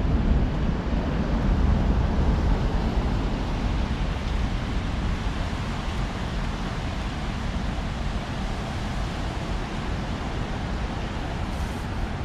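Wind buffeting the camera's microphone: a steady low rumbling noise, a little stronger in the first few seconds.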